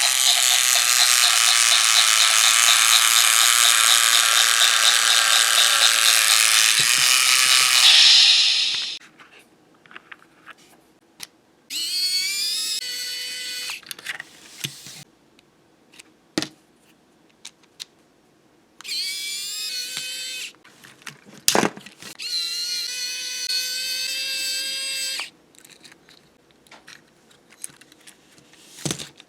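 Small battery motor and plastic gearbox of a Trackmaster Talking Spencer toy engine running with a loud grinding whirr, the noisy gear being repaired. It stops about eight seconds in. Later it runs again in three short spells, each rising in pitch as it spins up, with light clicks of handling between them.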